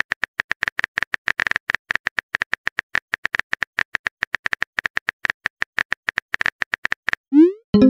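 Simulated phone-keyboard typing clicks from a texting-story app, fast and even at about ten a second as a message is typed. About seven seconds in they stop and a short rising swoop begins.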